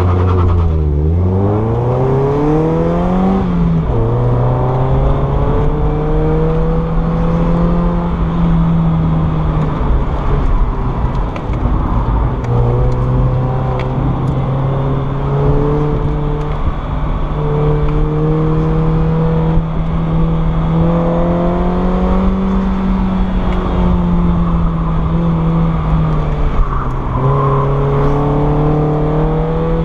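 1994 Mazda Miata NA8's 1.8-litre four-cylinder engine pulling hard through an autocross course, heard from inside the open cockpit. Its pitch climbs, drops sharply about three and a half seconds in as it shifts up, then rises and dips again and again as the throttle comes on and off through the turns.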